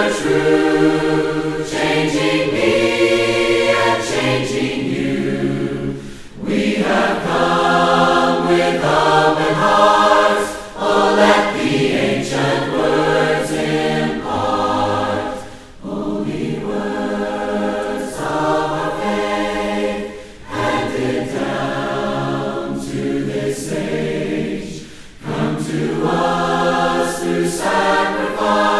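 A group of voices singing a hymn in harmony, a cappella, in sustained phrases of about four to five seconds with short breaks between them.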